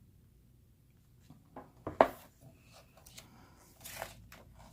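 Paper being handled: short rustles and a sharp snap of stiff photobook pages being turned, the loudest about two seconds in and another rustle about four seconds in.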